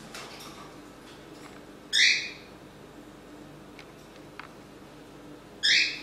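Cockatiel giving two loud, short screeching calls about three and a half seconds apart, asking to be let out of its cage.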